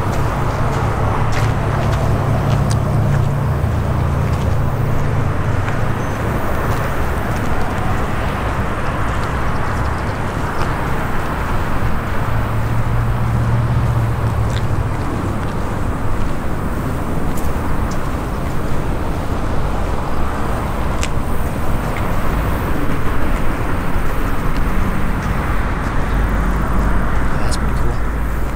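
Steady outdoor background noise: a low rumble under a broad hiss, with a few faint ticks now and then.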